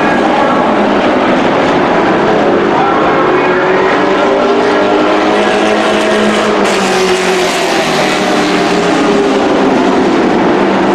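Engines of a pack of dirt-track race trucks running hard around the oval, several engine notes overlapping and rising and falling in pitch as the trucks pass.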